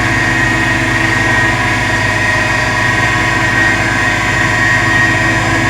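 An engine running steadily, with a steady high-pitched whine over it.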